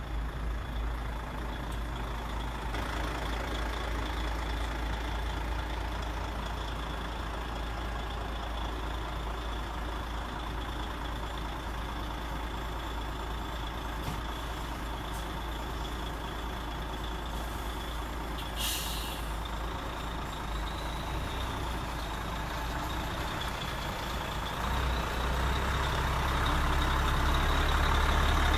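Simulated diesel truck engine sound from the sound module of a radio-controlled Mercedes Arocs tipper truck model, running steadily and growing louder over the last few seconds, with a brief air-brake hiss about two-thirds of the way in.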